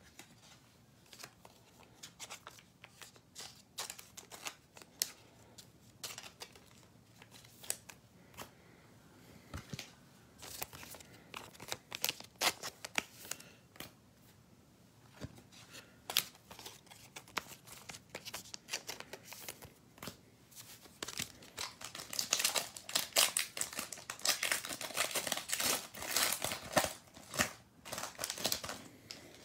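Wrestling trading cards being handled and a card pack being opened: scattered small clicks and rustles of cards, then several seconds of dense crinkling and tearing of the pack wrapper near the end.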